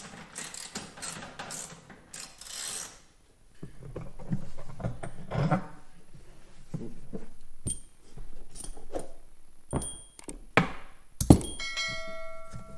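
Handling noise of a studded leather motorcycle saddlebag being unfastened and worked on a workbench: rustling, scattered clicks and knocks, and its metal hardware clinking. A sharp knock comes near the end, followed by a brief ringing chime.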